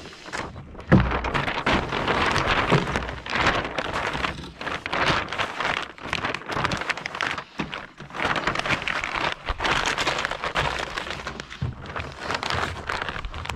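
Kayak sail's stiff fabric crackling and rustling close up as it is lowered and folded down against the hull by hand.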